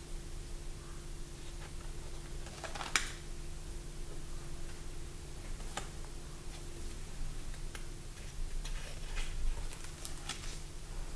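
Sketchbook pages being handled and turned: a few short paper rustles and clicks, the loudest about three seconds in and a cluster near the end, over a steady low hum.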